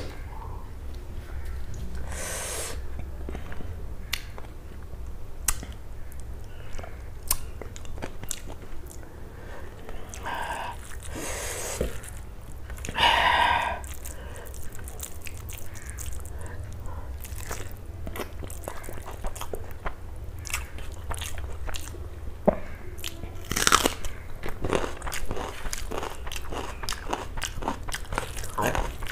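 Close-miked eating sounds: chewing and crunching crisp food, with many sharp mouth clicks and smacks and a few louder crunches, over a low steady hum.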